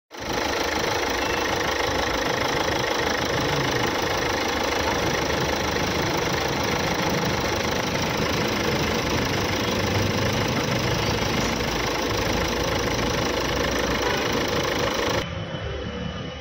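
Ford Figo Aspire's engine running steadily at idle under the open bonnet while its AC pressures are checked on a gauge manifold. The sound drops off suddenly near the end.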